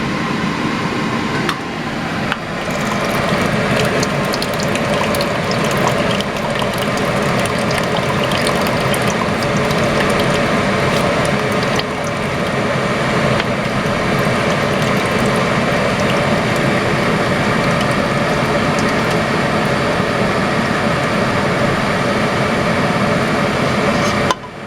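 Potato liquid from a canning jar poured into a pot of thickening stew base while a utensil stirs it, scraping against the pot with a continual run of small clicks.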